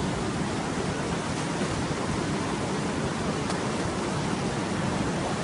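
Steady, even rush of water, typical of floodwater running through a rain-cut washout in the road.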